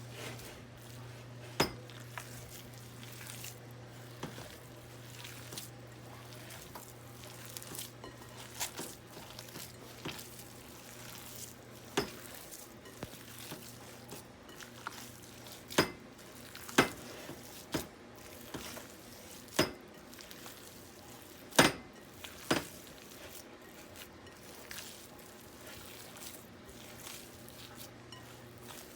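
Kitchen dishes and utensils clinking now and then, about eight sharp clinks, most of them in the second half, over a low steady hum.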